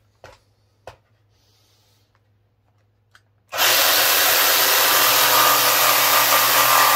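A few faint clicks, then about three and a half seconds in a cordless 20V jigsaw starts abruptly and runs steadily at full speed, its blade cutting a tight curve into a thin wooden board.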